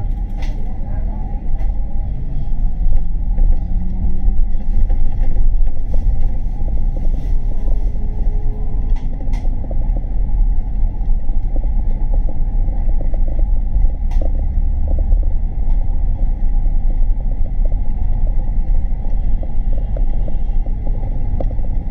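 City bus in motion, heard from inside the cabin: a steady low rumble of engine and road noise, with a few faint clicks and rattles.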